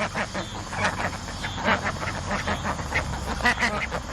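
Poultry calling in a rapid string of short, overlapping squawks.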